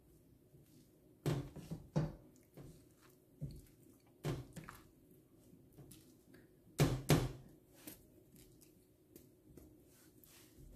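A utensil knocking and scraping in a stainless steel saucepan as a stiff flour-and-milk dough is stirred: irregular knocks, the loudest a close pair about seven seconds in.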